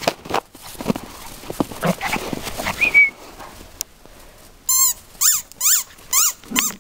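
Crunching steps through snow, then a small dog yapping: five short, high-pitched yaps about half a second apart.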